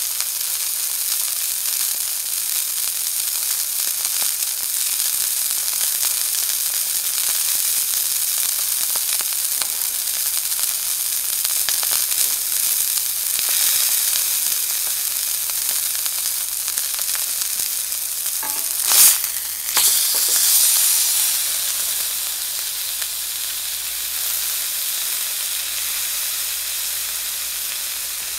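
Elk steak sizzling steadily as it sears in a hot pan. About two-thirds of the way through comes a sudden louder spit, and another a second later.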